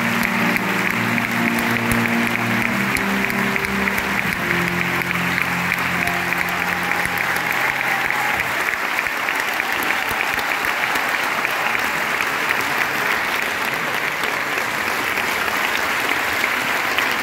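Audience applauding a live concert, over the band's last held low notes, which stop about eight seconds in; the applause then goes on alone at a steady level.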